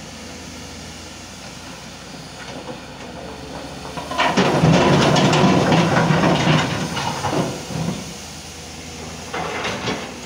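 A Volvo crawler excavator's diesel engine runs steadily. About four seconds in, a bucketload of broken rock is dumped into a steel dump-truck bed with a loud rumbling clatter for about three seconds. Another loud burst of clatter comes near the end.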